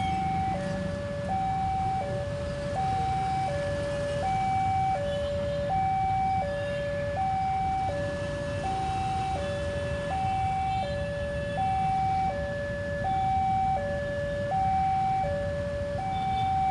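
Railroad crossing warning alarm ringing a steady two-tone electronic chime, alternating a high and a low note about every three-quarters of a second, over a low rumble. It signals a train approaching while the crossing barrier is down.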